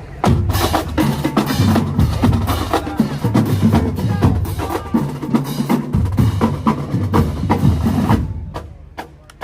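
Marching band drumline playing a loud, fast drum feature on snare and bass drums. It stops about eight seconds in, and a single hit follows near the end.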